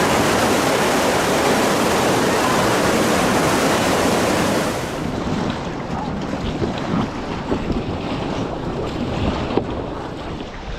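Loud rushing whitewater of river rapids around a raft, with wind on the microphone. About five seconds in, the rush cuts off abruptly, leaving quieter sloshing and scattered splashes.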